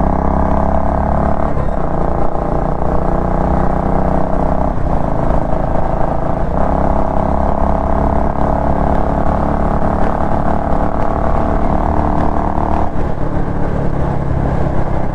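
Royal Enfield Classic 350's single-cylinder engine running through a pea shooter exhaust with its dB killer fitted, heard from the bike while riding. The note holds steady and shifts briefly a few times as the rider changes speed.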